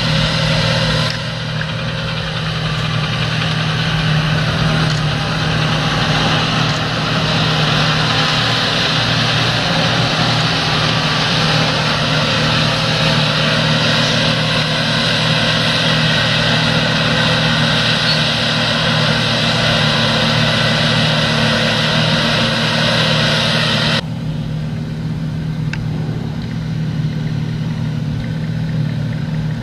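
John Deere combine harvester at work with a tractor running alongside: a steady engine drone under a loud hiss. About 24 seconds in the hiss drops away and the drone continues a little quieter.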